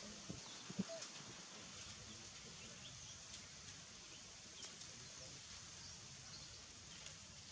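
Quiet outdoor ambience: a steady faint hiss with scattered faint, short, high bird chirps, and a few soft ticks in the first second.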